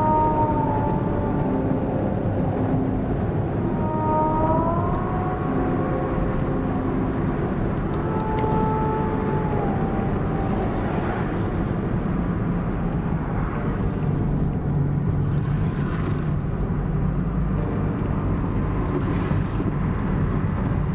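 Steady low engine and road rumble inside a moving car. During the first half, a few held whistle-like tones slide up or down in pitch over it.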